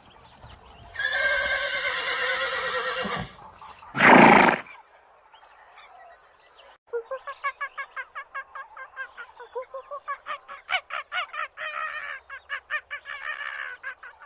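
A horse whinnies for about two seconds, then gives one short, loud snort. From about seven seconds in, farm fowl call in a fast run of short notes, several a second, until the end.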